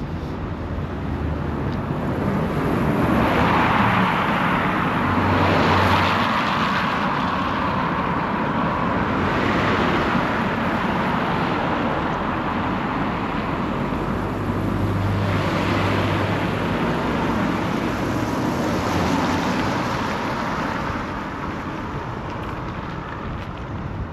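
Road traffic passing on a city street: several cars go by one after another, their tyre and engine noise swelling and fading about four times.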